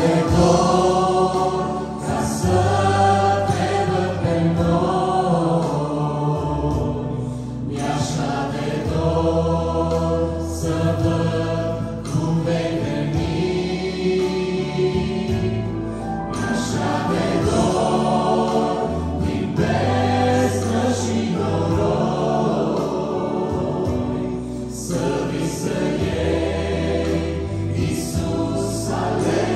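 A mixed vocal ensemble of men and women singing a Romanian Christian worship song in harmony into microphones over a church PA, with an instrumental accompaniment of long-held low bass notes.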